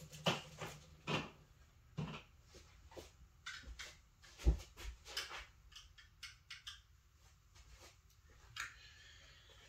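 Someone rummaging for a small screwdriver: scattered light clicks and knocks of items being moved about, with one heavier thump about four and a half seconds in.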